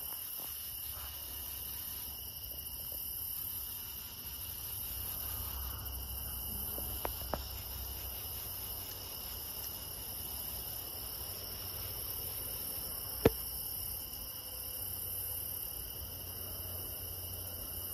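Steady summer-night chorus of crickets and other insects, several shrill tones held without a break over a low rumble. A couple of faint clicks come about seven seconds in, and one sharp click about thirteen seconds in.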